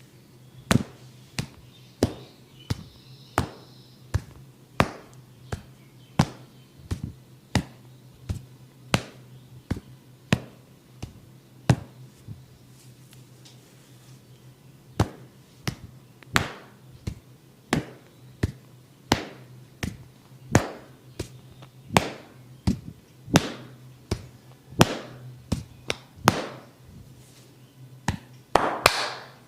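Percussive head-and-neck massage: sharp taps struck on the head and neck about once or twice a second at an uneven pace, over a faint steady low hum.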